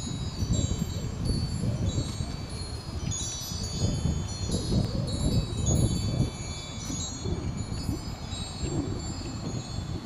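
A wind chime ringing irregularly in the wind, many short high tones overlapping, over gusty wind rumbling on the microphone.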